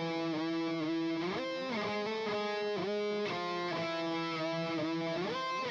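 Music: an electric guitar playing a lead line of long held notes, joined by bends and slides up and down in pitch.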